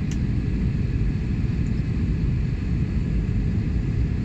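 Steady low rumble of jet airliner cabin noise in flight: engines and airflow heard from inside the cabin by the window.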